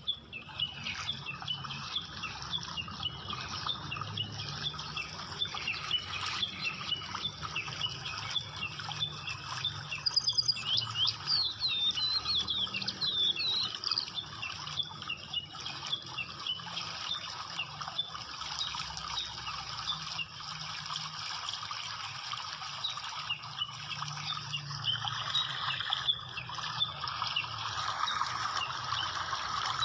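Many small birds chirping together in a dense, busy chatter, loudest from about ten to fourteen seconds in.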